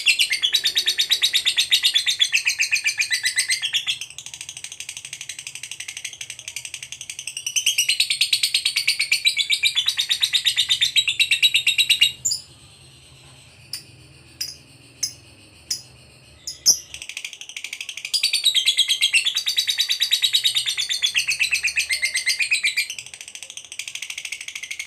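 Lovebird giving its long, rapid, high rattling chatter (the 'ngekek' song) in extended runs. About halfway through it breaks off for roughly five seconds, leaving only a few short sharp chips, then starts up again.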